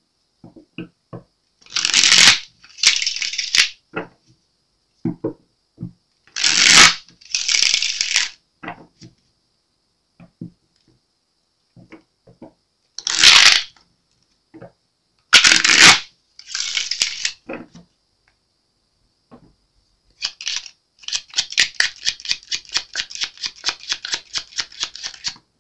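A deck of tarot cards being shuffled by hand: several short swishes of cards sliding against each other, then, from about 21 seconds in, a long run of quick card flicks, about seven a second.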